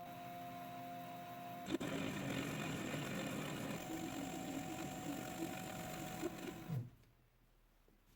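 Small workshop machine running steadily with a motor hum, with a sharp click about two seconds in where the sound changes; it stops abruptly near the end.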